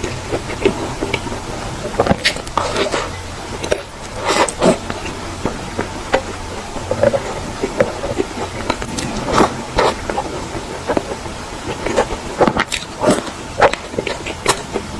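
Close-up crunching and chewing of a crispy sweet: irregular sharp crunches and crackles with wet mouth sounds between them.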